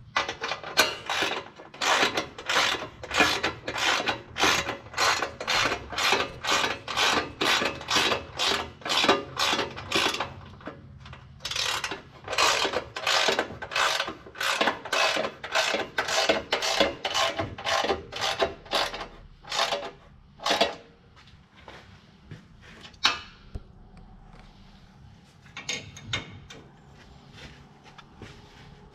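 Hand ratchet wrench clicking in quick back-and-forth strokes, about two a second, snugging bolts up by hand before they are torqued. There are two long runs with a short break about ten seconds in, then a few last strokes later on.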